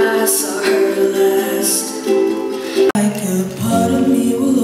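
A ukulele strummed along with a singing voice, broken off by an abrupt cut about three seconds in, after which a young woman sings.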